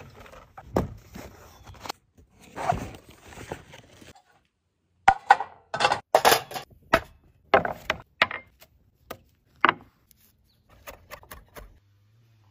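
Handling sounds of a grill being set up: a scraping and rattling as the metal grill lid is opened, then a string of sharp knocks as charcoal briquettes are dropped into a metal chimney starter, then faint clicks of a knife against a board and bowl.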